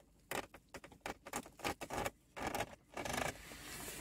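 An OBD2 code reader's plug and cable being handled and pushed into a car's diagnostic socket: a quick run of small plastic clicks and scrapes, then a short rustling hiss near the end.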